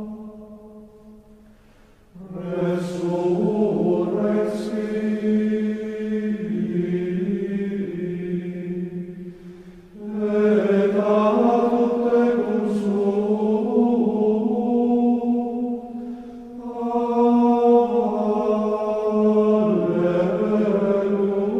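Slow sung chant in long held notes, in three phrases that begin about two, ten and seventeen seconds in.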